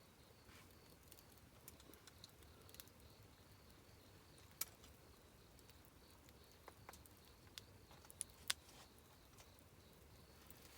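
Quiet campfire burning, wood crackling faintly with a few sharp pops: one about four and a half seconds in and a quick pair about eight seconds in.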